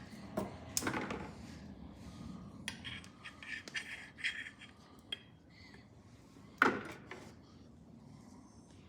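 Scattered light clinks, knocks and rubbing from hands handling a new oil filter and oiling its gasket with old engine oil, with one sharper knock about two-thirds of the way through.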